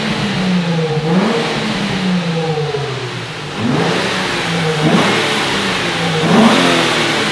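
Nissan 350Z's V6 engine being revved in short blips, its pitch rising sharply and falling back about four times.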